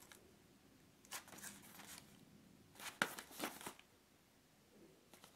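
Hands handling and turning a thin printed cardboard box: fingers rub and scrape on the card in two short bursts, with a sharp tap about three seconds in.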